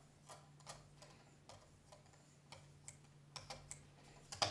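Faint, irregular light clicks and taps of a lapping-film-covered hone against a pocket knife blade and the clamp of a Work Sharp Precision Adjust sharpener, a slightly louder click near the end, over a steady low hum.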